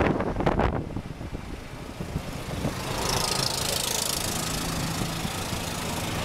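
Golf cart driving along, its small engine running steadily with a low hum that gets a little louder about halfway through, with some wind and road noise.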